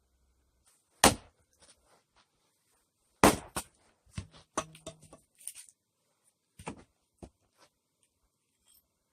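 Axe strikes splitting firewood: a string of sharp wooden knocks, the loudest about a second in and just after three seconds, followed by smaller knocks and clatter.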